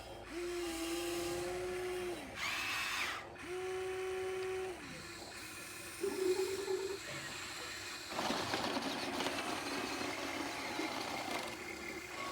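Small electric motors of a radio-controlled model excavator whining in short runs of a second or two, stopping and starting as the controls are worked. A brief hiss comes about two and a half seconds in, and the running turns rougher and noisier in the last few seconds.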